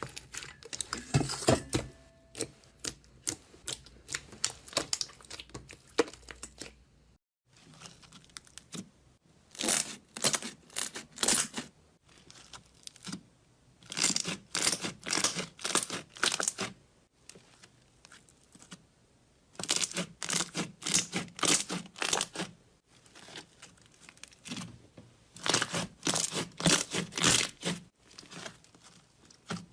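Slime being squeezed and worked by hand, giving bursts of sharp crackling pops and clicks in quick runs, with short pauses between the runs.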